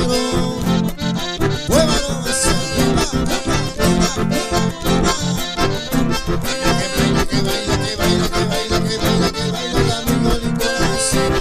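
Two button accordions and a strummed acoustic guitar playing a lively chamamé together in an instrumental passage, with the accordions carrying the melody over a steady dance beat.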